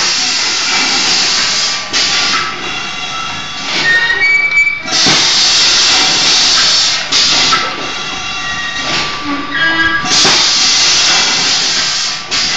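Pneumatic cup filling and sealing machine running in cycles: a loud burst of air hiss about every five seconds, each lasting about two seconds, with quieter mechanical running and short high squeaks between the bursts.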